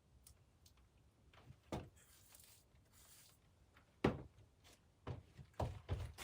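Several dull knocks and thuds, the loudest about four seconds in and a quick cluster near the end, with a soft hiss between them.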